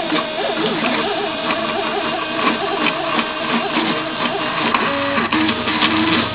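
Teneth cutting plotter contour-cutting a printed sticker sheet: the carriage motors whine in quick, wavering pitches as the blade head traces around the printed designs, with a few sharp ticks.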